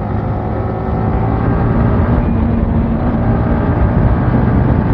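Motorcycle engine running steadily under way, a single engine note with a rush of wind noise around it, getting slightly louder about a second in.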